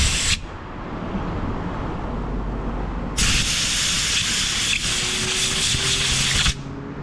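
Compressed-air blow gun hissing in two blasts, a short one that cuts off right at the start and a longer one of about three seconds starting about three seconds in, aimed at a carburetor main jet clogged with calcified dirt that the air fails to clear.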